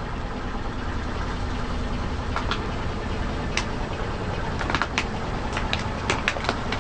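A car's engine running low and steady while its tyre crushes something crunchy. Sharp cracks and crackles start about two and a half seconds in and come faster toward the end.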